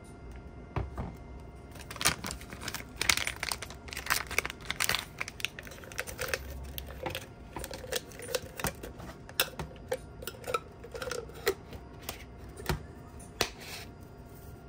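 Paper bag crinkling and crackling in irregular bursts as it is crumpled and pushed into a small metal tin, with light metallic knocks from the tin being handled.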